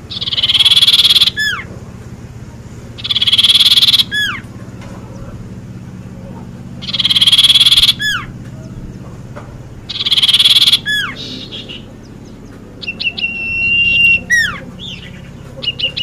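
A caged songbird of the kind sold as cipoh, sirtu or cito is singing in its harsh rasping style ('ngerok'). Four times, about every three seconds, it gives a rasping note followed by a quick falling whistle. Near the end it switches to a clearer, steady whistled note that ends in a downward slur.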